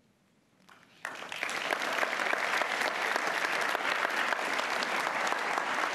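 Audience applause breaks out about a second in and keeps up steadily: many hands clapping at once.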